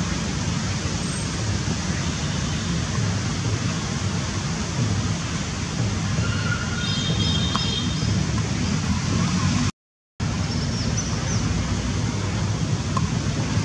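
Steady outdoor noise, a continuous low rumble with hiss over it, with a few faint high chirps near the middle. The sound drops out briefly about ten seconds in.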